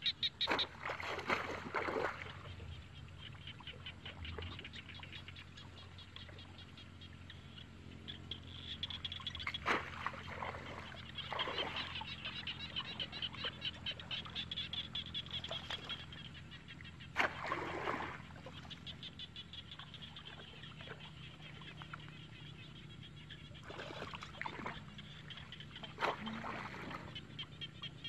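Water splashing and sloshing several times as a woven bamboo plunge-basket fish trap is pushed down into shallow water and the wader moves through it. Behind it runs a steady, rapid, high pulsing chorus.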